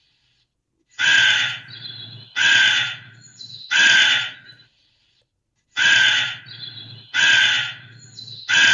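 Crow cawing: two series of three loud, harsh caws, each under a second long and about a second and a half apart, with a short pause between the series.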